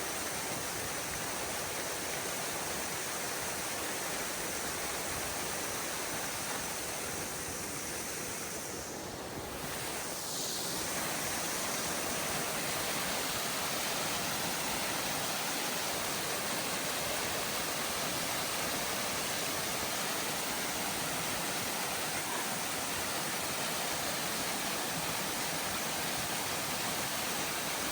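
Waterfall rushing steadily, an even wash of falling-water noise that is briefly a little quieter about nine seconds in.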